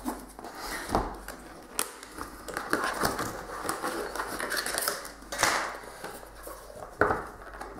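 Cardboard packaging sleeve rustling and scraping as it is worked off a collapsed Sea to Summit X-Set 31 silicone and plastic cookset, with a few sharp taps and clicks of the plastic lid and card against the table.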